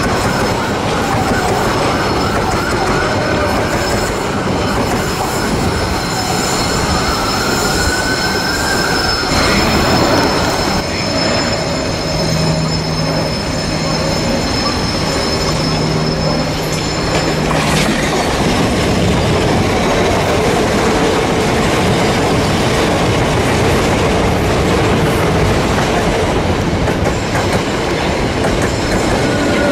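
Electric multiple-unit trains passing close by: a Southern Class 377 runs past with steady wheel-and-rail noise and a motor whine that falls and then rises in pitch over the first several seconds. Later a Gatwick Express Class 442 electric unit passes, its running noise and a rising whine filling the last seconds.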